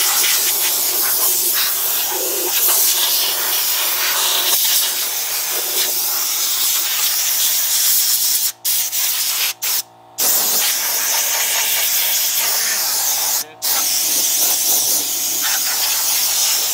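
Compressed-air blow gun on an air-compressor hose, hissing loudly as it blows rust and dust off a wire-wheeled truck frame. The hiss stops for a moment several times in the second half.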